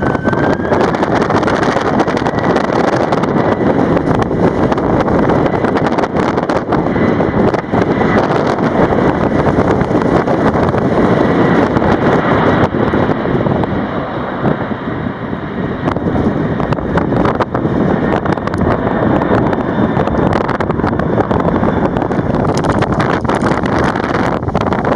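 Strong wind buffeting the microphone over the steady roar of a heavy jet airliner's engines at takeoff power, with a faint high engine whine near the start.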